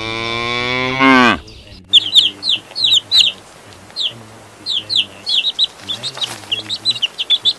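A cow mooing, one long low call that drops in pitch and stops about a second and a half in. Then baby chicks peeping: a rapid, irregular run of high, downward-sliding cheeps.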